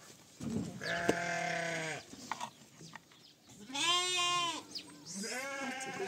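A lamb bleating three times, each call about a second long, the middle one the loudest and wavering.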